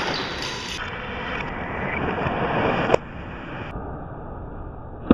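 Sound of a badminton doubles rally in a gymnasium: a steady noisy rumble with a sharp knock about three seconds in and another near the end.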